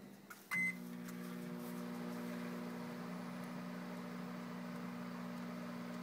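Galanz microwave oven beeping once as it is started, then running with a steady hum.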